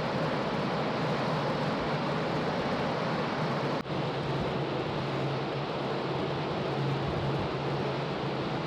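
Steady rushing noise over a low, even hum, typical of a large car ferry under way at sea. The sound jumps slightly about four seconds in, where one clip cuts to the next.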